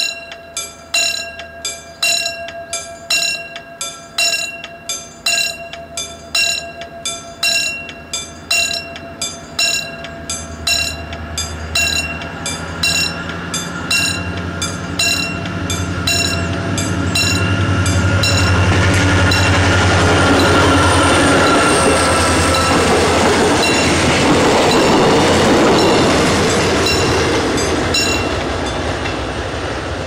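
Railroad crossing warning bell dinging in a steady, even rhythm while a train approaches with a building rumble. The train passes loudly with wheels running on the rails, and the bell dies away near the end.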